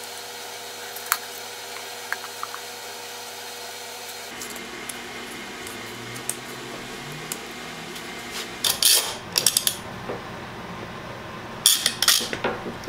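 Light clicks and knocks as a small wooden box is handled on a workbench, then two loud rasping bursts near the end, about three seconds apart, as blue painter's tape is pulled off its roll and one-handed bar clamps are squeezed tight around the box.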